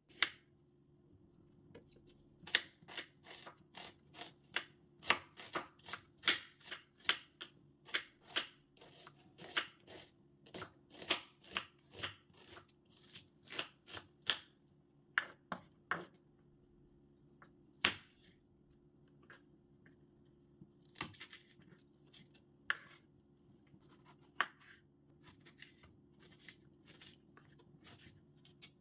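Kitchen knife slicing onion and tomato on a wooden cutting board: a run of sharp knocks of the blade striking the board, about two a second for the first half, then fewer and further apart.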